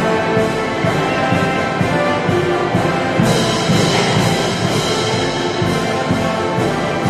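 Military band music, brass and drums, playing with a steady beat.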